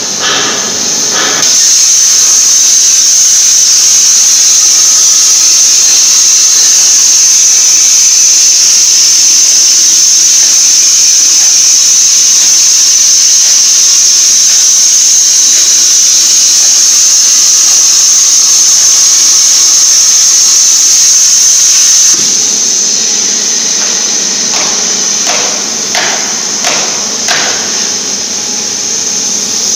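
CNC plasma torch cutting steel plate: the plasma arc gives a loud, steady, high-pitched hiss that starts about a second and a half in and cuts off suddenly about two-thirds of the way through. After that a quieter hiss goes on, broken by a few short puffs.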